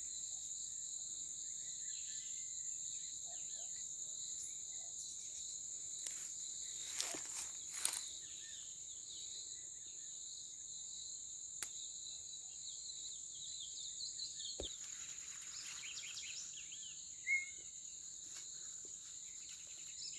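Steady, high-pitched insect chorus, with scattered short bird chirps and a few sharp clicks about 7, 8 and 12 seconds in.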